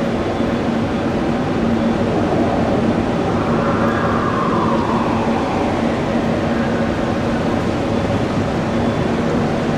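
Jet airliner engines running with a steady roar and a hum, a whine falling in pitch about four seconds in.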